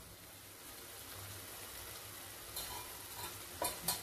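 Kadai chicken masala sizzling gently in an open kadai on medium flame, cooked down until the oil separates. Two short louder sounds come near the end.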